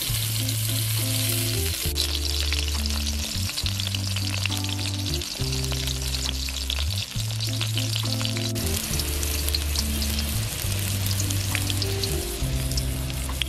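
Hot oil sizzling and crackling as whole stuffed bitter gourds (karela) fry in an iron wok, with frequent small pops. Background music of low held notes sits underneath.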